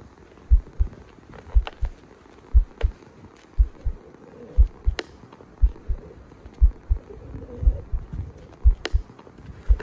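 A heartbeat sound effect: paired low thumps, lub-dub, about once a second at an even tempo, with a few faint sharp clicks between them.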